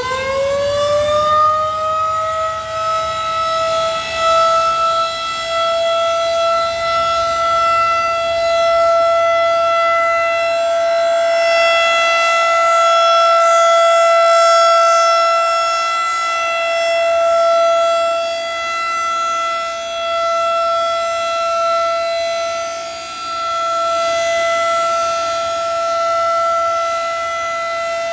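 Federal Signal 2001 DC rotating outdoor warning siren finishing its wind-up: one loud tone with many overtones glides up for about the first two seconds, then holds steady. The sound swells and fades as the horn rotates toward and away from the listener.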